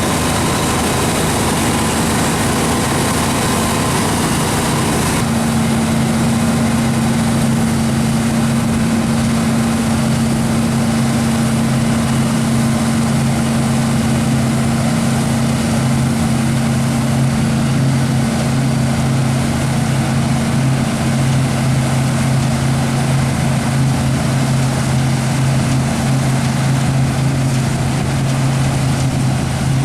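Large diesel harvest machinery running steadily with an even engine hum, its tone shifting slightly about five seconds in.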